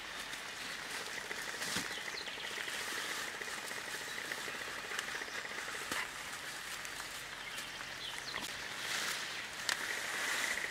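Leafy branches rustling, with a few sharp snaps and crackles, as they are handled and laid onto a shelter frame, over a steady high hiss of forest ambience.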